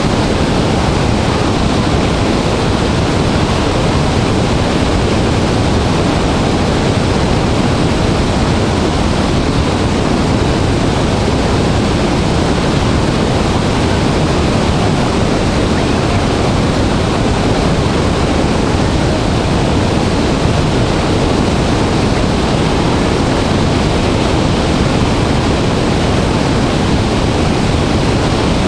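Loud, steady roar of a large waterfall in heavy flow, water pouring and crashing without a break.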